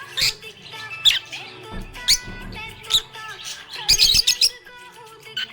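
Budgerigar chirping: short sharp chirps about once a second, with a quick run of them around four seconds in. Steady background music plays under the chirps.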